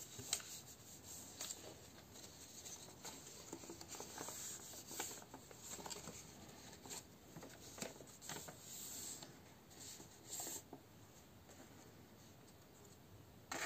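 A sheet of A4 paper being folded into a paper airplane: faint, uneven rustling and rubbing as fingers press and run along the creases, with scattered light crinkles. It goes quieter about two seconds before the end.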